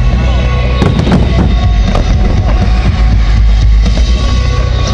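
Loud music with a heavy bass line playing over a fireworks display, with firework shells bursting a few times.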